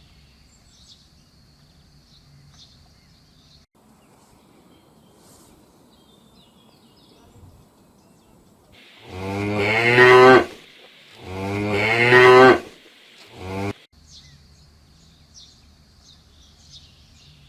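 A cow mooing: two long, loud moos a second or so apart, then a short third call.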